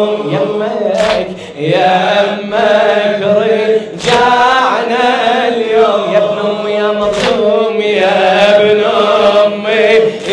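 Male chanting of a mournful Arabic latmiya lament, a slow melody with long drawn-out notes.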